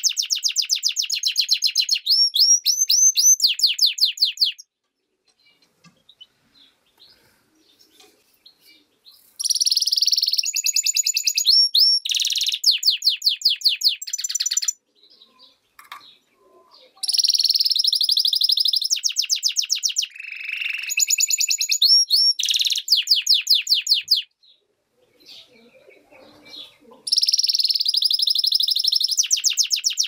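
A European goldfinch × canary hybrid (mule) singing in four long phrases of rapid, high twittering trills and quick repeated notes. Each phrase is separated by a pause of a few seconds.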